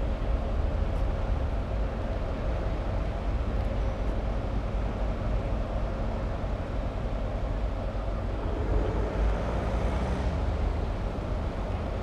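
Heavy diesel engine running steadily with a low rumble.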